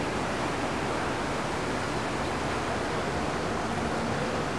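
Steady, even rush of fast-flowing floodwater in a swollen river.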